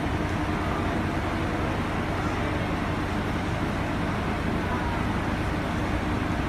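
JR Shikoku 2600 series diesel railcar standing and idling, a steady low engine drone with a constant hum.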